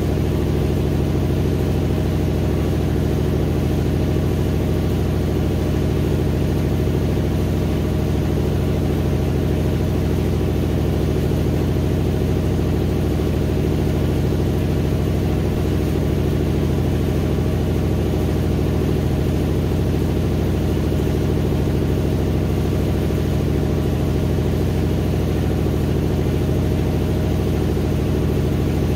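GE GTW720BSN0WS top-load washer spinning in the last minutes of its cycle: an even, steady hum of the motor and drum at one speed.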